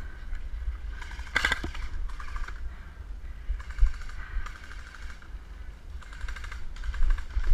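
Airsoft guns firing in short automatic bursts: several rapid clattering volleys of about a second each, the loudest about a second and a half in, over a low rumble on the microphone.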